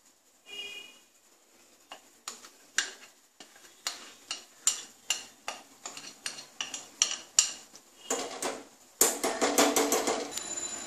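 Light clinks and taps of kitchenware as the last of the dhokla batter is scraped and knocked out of a bowl into a greased steel bowl. The clinks come about twice a second, then a quick run of them near the end.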